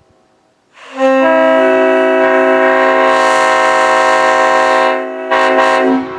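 Multi-chime railroad air horn sounding a chord, its notes coming in one after another, in a long blast of about four seconds, then after a brief dip a short blast that cuts off sharply.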